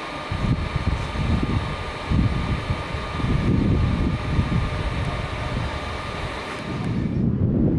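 Wind buffeting the microphone in irregular gusts over a steady mechanical hum with a faint whine. The hum and whine cut out near the end, leaving only the wind rumble.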